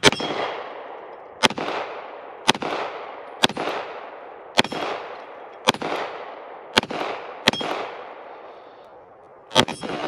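A CZ P10 F 9mm pistol fired about nine times at a steady pace of roughly one shot a second, with a longer pause before the last shot. Each shot is a sharp crack followed by a fading echo.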